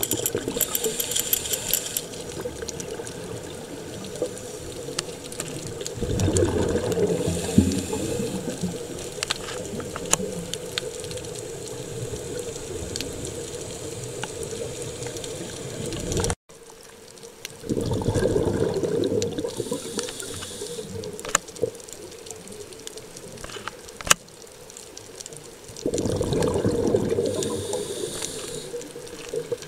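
Scuba diver's exhaled bubbles from the regulator, bubbling and gurgling in three bursts about ten seconds apart, over a steady underwater hiss, heard through an underwater camera housing.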